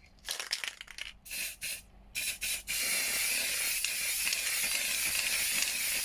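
Aerosol spray paint can spraying: a few short bursts of hiss, then a steady spray from about three seconds in.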